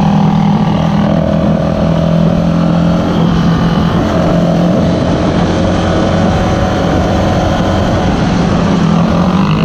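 Yamaha Raptor 350 quad's single-cylinder four-stroke engine running under way at a steady, even pitch, with small throttle changes about a second in and again around four seconds.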